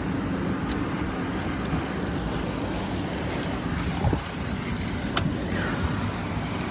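Car driving along, a steady rumble of engine and road noise heard from inside the cabin, with a few small clicks.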